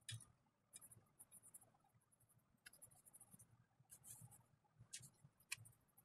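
Faint pencil scratching on paper in short, repeated sketching strokes, with a few sharper ticks.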